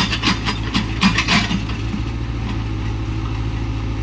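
Sumitomo hydraulic excavator's diesel engine running steadily, with short bursts of rasping noise in the first second and a half.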